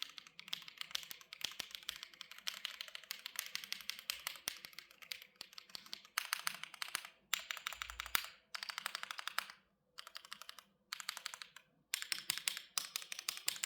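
Keychron Q8 Pro Alice-layout mechanical keyboard, metal-cased and stock out of the box, being typed on in fast runs of keystrokes. There are several brief pauses between runs in the second half.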